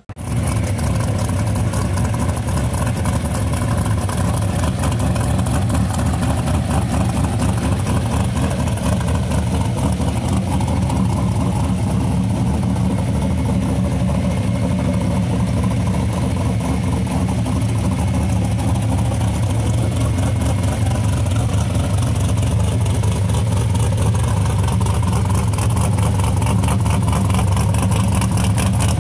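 Chevrolet S-10 drag truck's engine idling steadily and loudly on its first shakedown, each firing pulse coming through distinctly with no revving.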